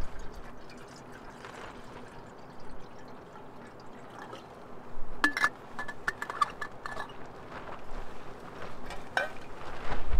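Water poured from a stainless steel bottle into a pot on a small tent stove, a quiet trickle. About five seconds in come a run of sharp metallic clinks and taps from the steel bottle and its cap, with one more click near the end.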